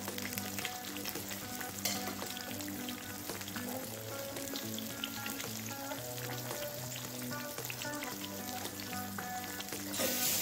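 Raw banana slices deep-frying in coconut oil: a steady sizzle full of small crackling pops, stirred with a slotted ladle, with a louder hiss near the end. Faint background music underneath.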